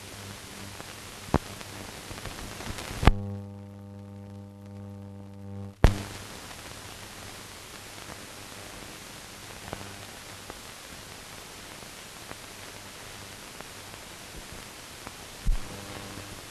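Blank-soundtrack noise: a steady hiss with a low mains hum and a few sharp clicks. About three seconds in the hiss cuts out with a loud click, leaving only a steady hum buzz, then returns with another click about three seconds later; a low thump comes near the end.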